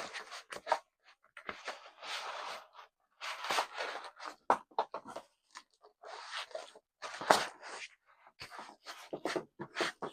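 Packaging being handled and pulled out of a cardboard box: irregular bursts of rustling and scraping with sharp clicks, several seconds of them with short pauses in between.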